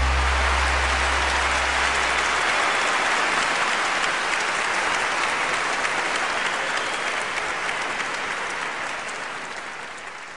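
Audience applauding, a dense steady clatter of clapping that gradually fades out toward the end. A low held note from the end of the song dies away in the first two seconds or so.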